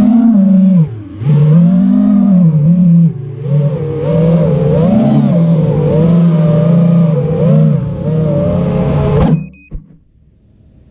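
FPV quadcopter's brushless motors whining, the pitch rising and falling with each throttle punch. About nine seconds in a sharp crack cuts the motor sound off: the quad crashing, which bends one of its arms.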